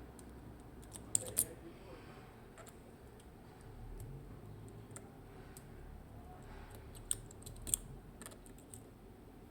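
Small sharp clicks and ticks from lock picking tools working inside a Mottura C55 dimple lock. There are scattered light ticks, with a couple of louder clicks about a second in and two more around seven seconds in.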